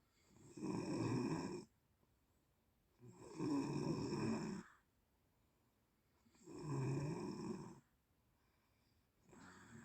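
A sleeping person snoring: three loud rasping snores, each a second or so long, coming about every three seconds with quiet breaths between, and a fainter snore starting near the end.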